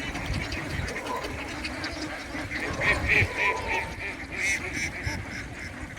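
Ducks quacking, short calls repeated over one another, with a quick run of quacks in the middle.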